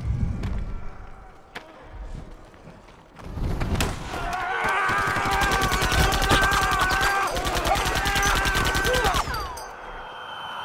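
Gunfire in a film battle scene: a few scattered shots, then from about three seconds in a loud, dense stretch of rapid automatic fire that eases off near the end.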